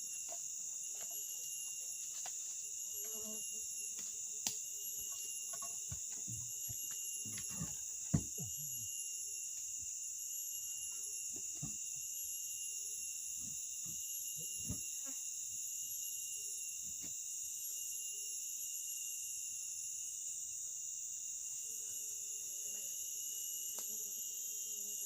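Steady high-pitched insect chorus, shrill and continuous, with a few faint knocks and clicks scattered through it, the sharpest about eight seconds in.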